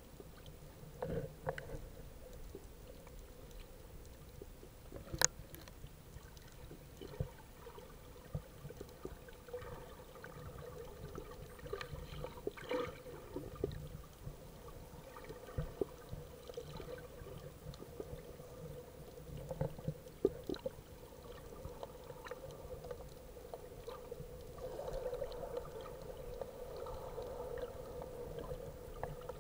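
Muffled underwater sound heard through an action camera's waterproof housing: faint water movement with scattered clicks and knocks, one sharp click about five seconds in, over a faint steady hum.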